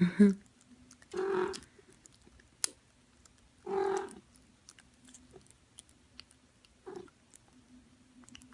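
A cat purring with a low, steady hum, with a few short, louder sounds about a second and about four seconds in and scattered faint clicks.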